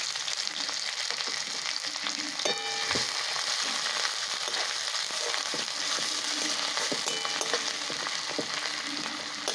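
Chopped onion frying in hot mustard oil in a kadai with nigella seeds and green chillies: a steady sizzle, with the spatula clicking against the pan as it is stirred. There is a brief metallic ring about two and a half seconds in.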